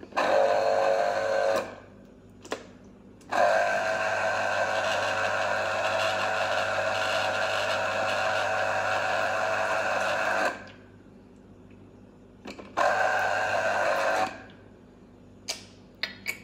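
Ikon electric citrus juicer's motor running in three bursts, a short one, a long one of about seven seconds and a short one, as an orange half is pressed onto the spinning reamer cone. A steady hum that starts and stops sharply each time.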